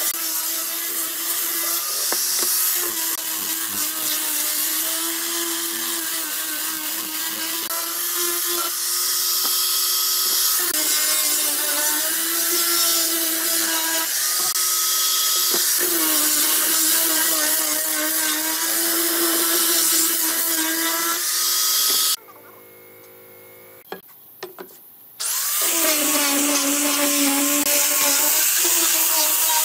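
Angle grinder with a sanding disc running and sanding pine boards: a steady motor whine over a scratchy sanding hiss, the pitch shifting slightly now and then. Near the end it stops abruptly for about three seconds, then runs again.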